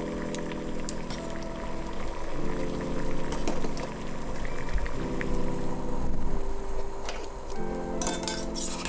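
Water boiling in a small stainless-steel saucepan of spaghetti, with metal tongs clicking against the pan at the start and again near the end. Background music with held chords plays alongside.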